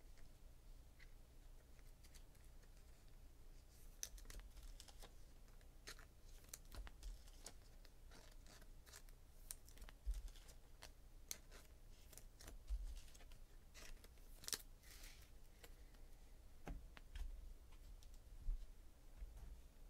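Faint, scattered clicks, rustles and short tearing sounds of trading-card packs and cards being handled and opened, with a longer rustle about two-thirds of the way through.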